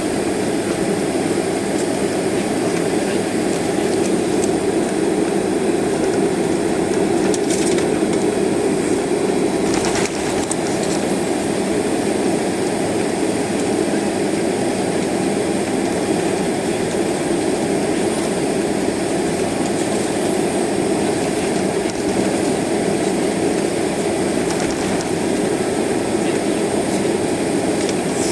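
Steady cabin noise of a jet airliner taxiing: the low rumble of idling engines, air conditioning and rolling wheels. Faint knocks come about seven and ten seconds in.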